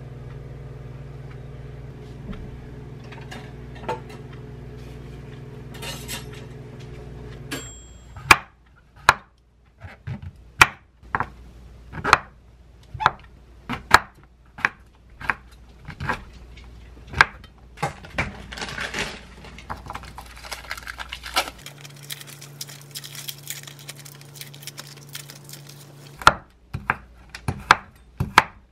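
Chef's knife cutting on a wooden cutting board: sharp, separate knocks of the blade on the board, roughly one a second, as it dices king oyster mushroom and then slices raw bacon near the end. For the first seven seconds or so, and again for a few seconds later on, a steady low hum underlies it.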